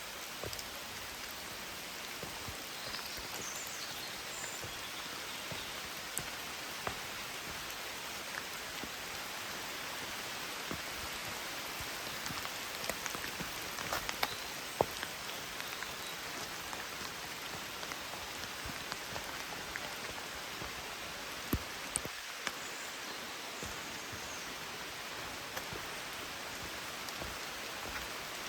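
Steady rain falling, with scattered sharper taps of drops striking close by.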